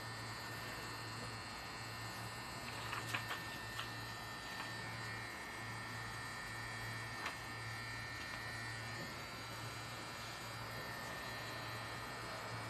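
Low, steady electric hum of a rotary pen tattoo machine's motor, dropping out briefly now and then, with a few faint clicks.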